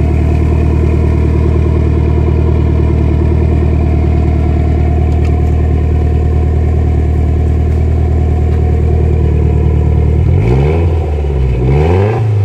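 BMW M42 1.8-litre four-cylinder engine heard at the exhaust tip, idling steadily after a cold start through an exhaust with a newly welded-in twister resonator. About ten seconds in it is revved briefly, the pitch rising and falling, and a second rev begins near the end.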